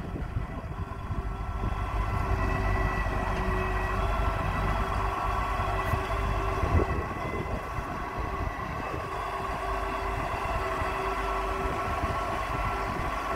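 Marine travel lift's engine and hydraulic drive running: a low drone with steady whining tones over it.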